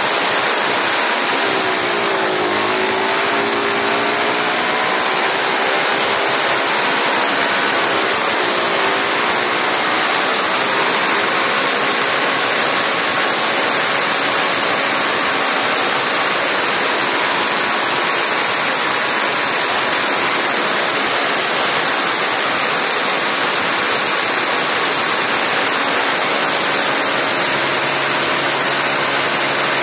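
Single-cylinder Briggs & Stratton lawnmower engine, fed oxygen with its fuel and no throttle, running flat out at about 9,200 rpm: a loud rushing hiss over the engine note. The note dips briefly about two seconds in and again around eight seconds, recovers, and settles onto a lower steady note near the end.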